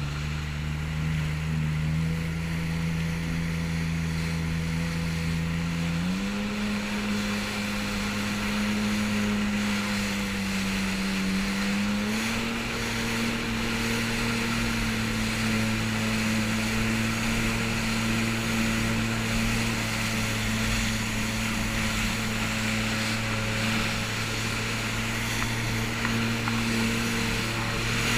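Jet ski engine running steadily at speed, its pitch stepping up three times in the first half as the throttle is opened further, over a wash of water and wind noise.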